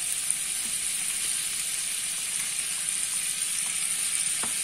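A pat of butter sizzling as it melts in a hot pot: a steady frying hiss with a few faint crackles.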